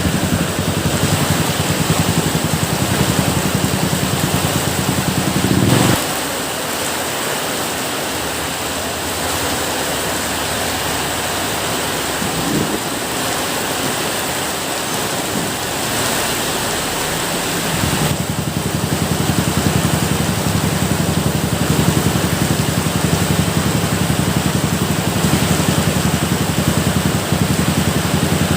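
Steady rain, an even hiss. A low, fast-pulsing rumble runs beneath it, drops out about six seconds in and comes back some twelve seconds later.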